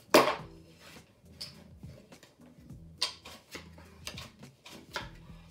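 A sharp clack of casino chips being set down on the felt table, then a few lighter clicks and taps of chips and playing cards being dealt.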